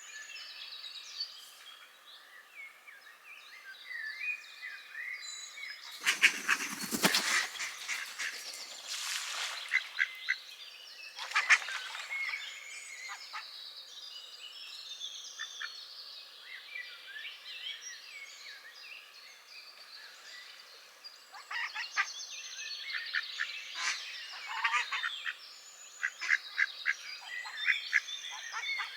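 Ducks calling loudly by a pond, one long harsh call about a quarter of the way in and then quick runs of calls in the last third, over continuous songbird chirping.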